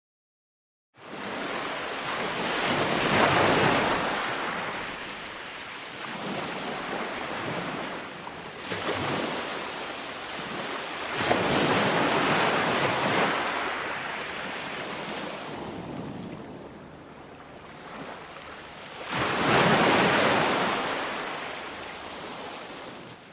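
Sea waves breaking on a shore: a rushing noise that swells and falls back in three big surges, starting after about a second of silence and cutting off suddenly at the end.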